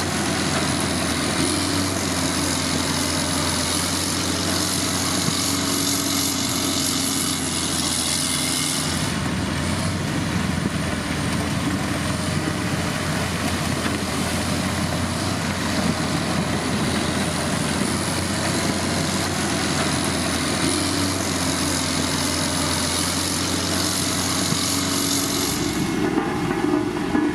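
Heavy road-building machinery's diesel engine running steadily, with a thin high whine over it that dips about nine seconds in and drops out near the end.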